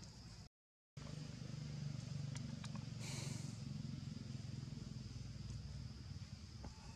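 Outdoor background sound: a steady low rumble with a constant high, thin drone above it. The sound cuts out completely for about half a second near the start.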